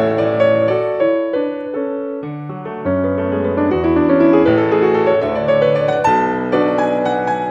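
Solo piano music: a continuous run of single notes and chords, each struck and then fading.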